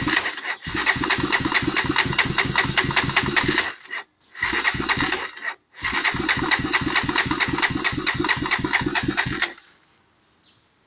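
Honda TRX300EX's single-cylinder four-stroke engine, bored 4 over, turning over and sputtering in four bursts, each cut off suddenly, with brief gaps between them. It starts and then won't keep running, which the owner puts down to the carburettor jets.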